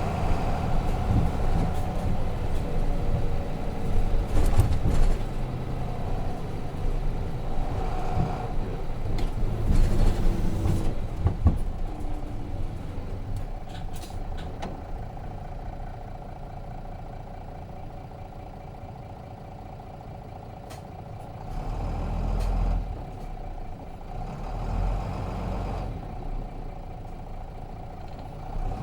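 Cabin sound of a Nissan Diesel RM-series bus with its FE6 inline-six diesel engine running on the road. The engine is louder for the first ten seconds or so, drops to a quieter run for several seconds, and picks up again near the end, with a few short clicks.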